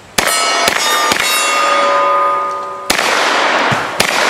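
Shots from a Hi-Point 995 TS 9mm carbine. The first three come in quick succession within the first second or so, and each is answered by the ringing of hit steel targets. The ring holds steady until about three seconds in, and then more shots follow near the end.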